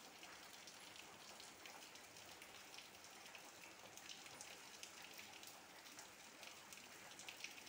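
Faint ballpoint pen writing on notebook paper: small irregular ticks and scratches over a low hiss.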